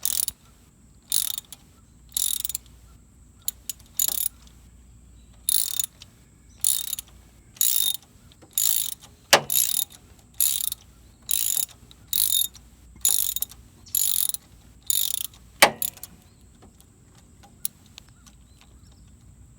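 Socket ratchet wrench clicking in repeated short strokes, roughly one a second, as it turns out a spark plug, with two sharp knocks of metal on metal in between. The ratcheting stops a few seconds before the end.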